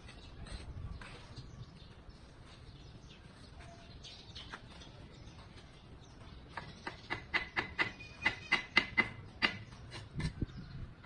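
Bricklayer's steel trowel working mortar on a brick course: faint scraping at first, then about halfway through a quick run of sharp, ringing taps, some four a second for about three seconds, and a couple of dull thumps near the end.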